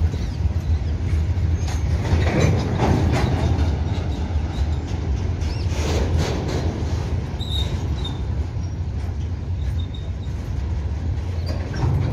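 Freight train of covered goods wagons rolling past on the track: a steady low rumble of wheels on rail, with a few louder clanks about two and a half, three and six seconds in and again near the end.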